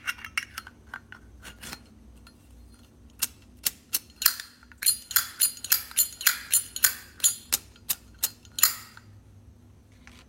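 Sterling silver Zippo lighter being handled: its hinged lid flipped open and snapped shut again and again, a quick run of sharp metal clicks, some with a short ring, mostly between about three and nine seconds in, with a few scattered clicks near the start.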